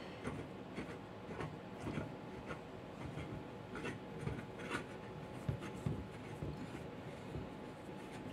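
Faint, scattered small clicks and rubbing of hands handling gear, with a hand taking hold of the antenna on its aluminium bracket near the end.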